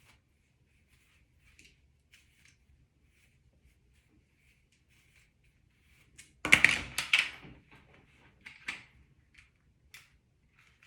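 Faint, short rustling strokes repeat throughout. About six and a half seconds in comes a loud clatter of knocks lasting about a second, then a smaller knock about two seconds later.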